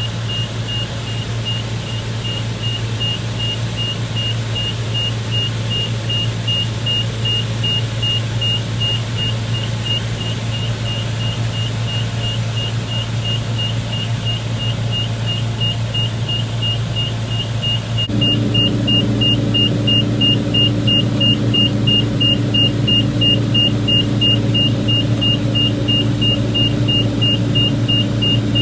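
Combine engine running steadily under a rapid, evenly spaced high-pitched warning beep. About two-thirds of the way through, the machine gets louder and a new steady hum joins in, as more of the machine comes under load.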